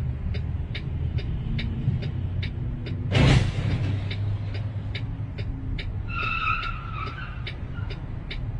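Tyres squealing for about a second, some six seconds in, as a car ahead skids sideways, over the steady low running of the vehicle's engine. A short loud noise about three seconds in, and an even ticking about two or three times a second.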